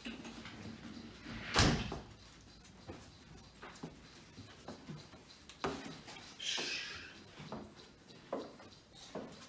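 An interior house door shutting with one loud thump about a second and a half in, followed by a few soft, scattered footsteps and knocks as someone creeps up a staircase.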